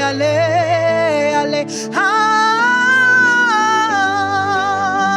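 Gospel worship singing: a voice holds a long, wavering 'oh', sliding up to a higher note about two seconds in, over steady instrumental backing.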